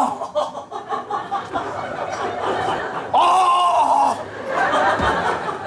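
Studio audience laughing, with one drawn-out voice held for about a second, about three seconds in.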